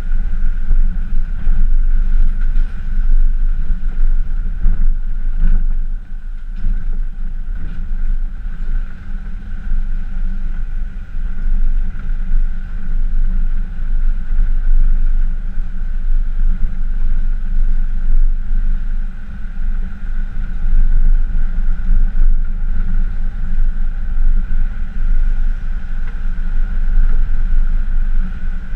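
Pickup truck driving along a dirt forest track towing an off-road camper trailer, heard from a camera mounted on the truck: a steady, loud low rumble of engine and road noise with a constant thin whine above it.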